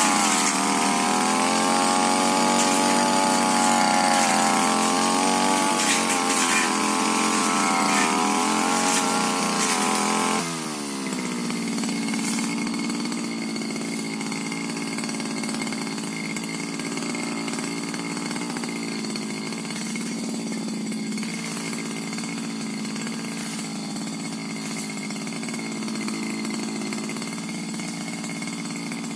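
Tiger TG328 two-stroke brush cutter running at full throttle, its engine note wavering up and down under the load of cutting. At about ten seconds the throttle is released and it drops to a steady idle.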